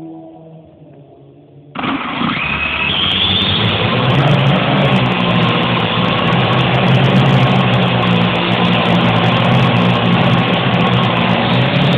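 Parrot AR Drone 2.0 quadcopter's electric motors starting abruptly about two seconds in, whining up in pitch for a moment, then running steadily and loud.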